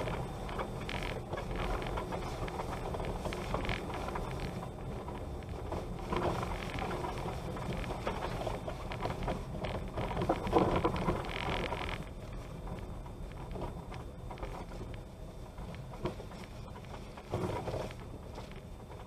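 Bicycle riding along a rutted dirt road: a steady rumble and rattle from the ride, with wind on the microphone. There are louder jolts about ten seconds in and again near the end.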